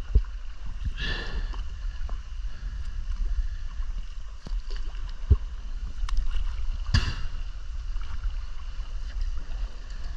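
Kayak paddle strokes: the blade splashes through calm sea water twice, about a second in and again about seven seconds in, over a steady low rumble.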